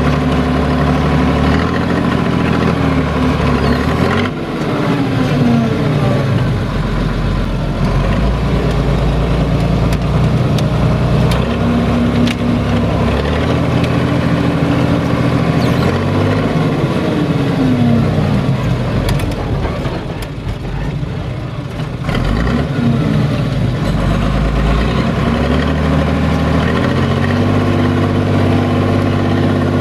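SAME Laser 110 tractor engine running under way, heard from inside the cab, its revs dropping and picking up again several times.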